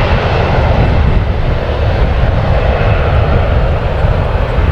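Airplane taking off, its engines a loud, steady roar.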